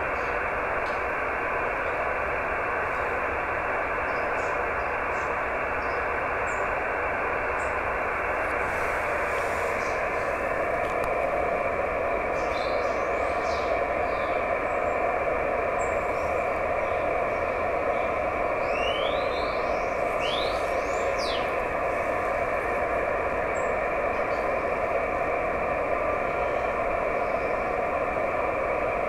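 Steady receiver hiss from an Icom IC-910H transceiver on 432 MHz SSB, sharply cut off in pitch by the radio's narrow audio passband. This is the band noise heard while listening for weak moonbounce (EME) JT65 signals, which lie buried in it.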